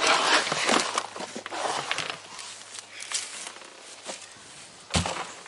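A large black plastic pot scraping and rustling against a plastic wheelbarrow tray as it is tipped and pulled off a root ball of potting soil, loudest in the first two seconds and then easing to small scrapes and soil rustles. A single sharp knock near the end.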